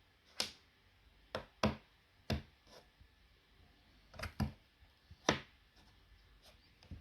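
A series of sharp, irregular knocks and taps, about eight in all, several coming in quick pairs, with the loudest about five seconds in.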